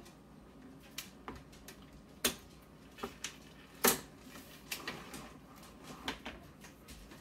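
Hinged lid of an electric contact grill and griddle clicking and clacking as it is swung back and opened out flat: about ten sharp clicks and knocks, the loudest about four seconds in.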